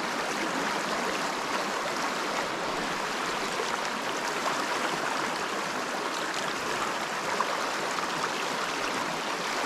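Small mountain trout stream running, a steady rush of flowing water.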